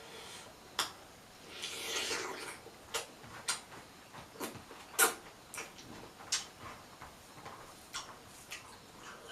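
Eating sounds: a person chewing, with irregular wet mouth clicks and smacks and a brief breathy rush about two seconds in.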